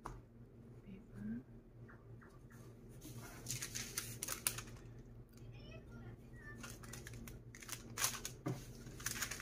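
Baking paper and paper towels rustling in short bursts as gloved hands pick them up and move them, with a light knock near the end.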